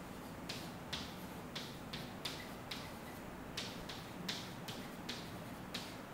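Pen tapping and stroking on an interactive board's screen while writing: about a dozen short, sharp taps at an uneven pace.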